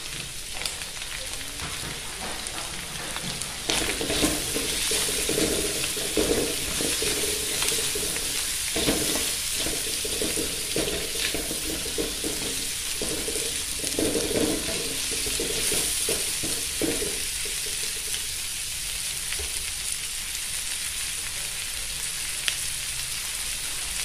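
Shredded cabbage, egg and mustard-green stalks sizzling steadily in an aluminium wok. From about four seconds in until past the middle, a spatula scrapes and stirs the vegetables against the pan, then the sizzle carries on alone.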